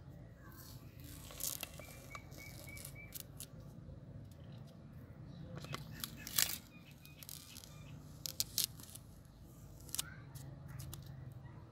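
A flat file's edge scraping fresh paint and film off the metal cylinder mounting flange of an air compressor crankcase: scattered short, sharp scrapes and crackles, the loudest about six and a half seconds in, over a faint low hum.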